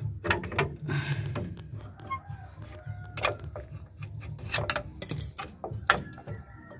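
Irregular metal clinks, knocks and scrapes of drum brake shoes and their return springs being pried off the backing plate with a screwdriver.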